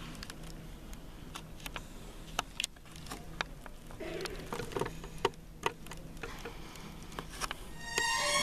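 Scattered, irregular small clicks and knocks over a low steady hum in a quiet auditorium. Music with strings starts near the end.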